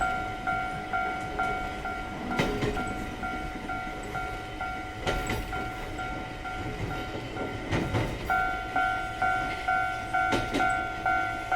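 Japanese level-crossing warning bell going 'kan-kan', a two-tone ding a little over twice a second, growing louder again about two-thirds of the way through. A passing train's wheels knock over the rail joints every few seconds.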